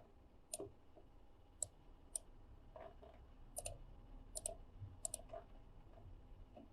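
Faint computer mouse clicks, irregularly spaced and some in quick pairs, over low room tone.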